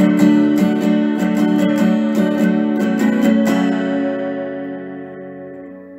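Guitar music, strummed chords; about three and a half seconds in the strumming stops and the last chord rings on, fading away.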